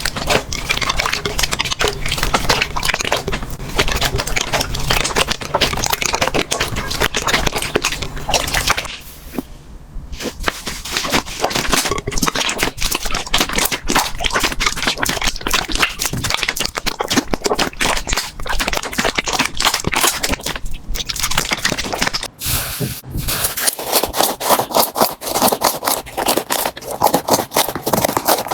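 Slime being squeezed, poked and stretched by hand, making dense, rapid crackling and clicking sounds. There is a short quieter stretch about nine seconds in, and the sound changes abruptly again past twenty seconds as one clip gives way to the next.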